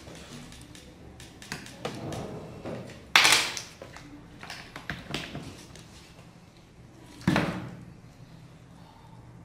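Tabletop handling of a hot glue gun and cut-paper pieces: light paper rustles and clicks, with two sharp knocks, one about three seconds in and one about seven seconds in, the second a duller thump.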